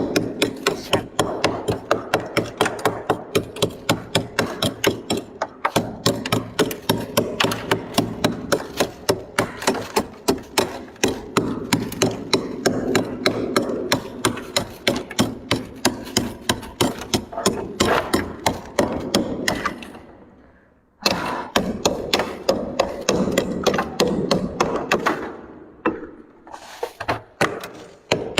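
Freezer frost being scraped off the freezer wall in quick, repeated crisp strokes, about two to three a second, with a brief pause about twenty seconds in.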